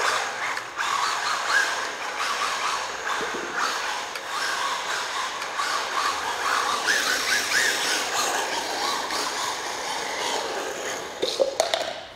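A 1/16-scale brushless RC drift car being driven and slid around a smooth concrete floor. The small electric motor whines, wavering up and down with the throttle, over a steady scrubbing hiss of the drift tyres. The sound dies away near the end.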